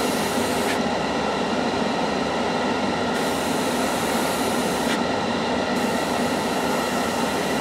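Airbrush spraying paint at high pressure, about 25 psi, with the trigger held fully down for air: a steady hiss of air with no break.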